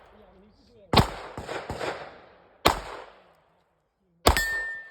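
Three pistol shots about a second and a half apart, with fainter cracks after the second; the last shot is followed by a steady high ringing tone.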